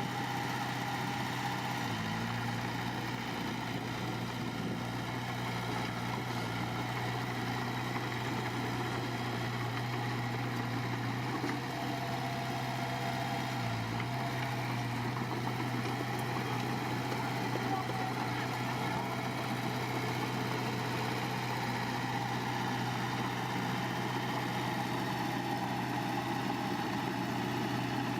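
Heavy construction machine's diesel engine running steadily at a low, even speed, with a brief dip about two seconds in and again near the middle.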